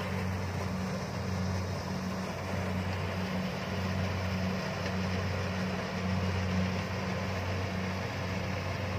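Kubota DC-70 combine harvester at work cutting rice: its diesel engine and harvesting machinery run steadily with a low engine hum under a broad mechanical clatter and whir, a little louder about six seconds in.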